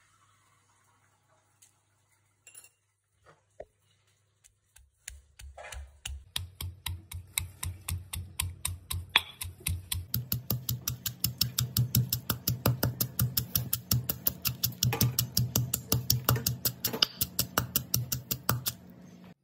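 Stone pestle pounding garlic cloves and bird's eye chillies in a stone mortar. A few scattered knocks come first, then from about five seconds in a fast, steady run of strikes, about five a second, that stops shortly before the end.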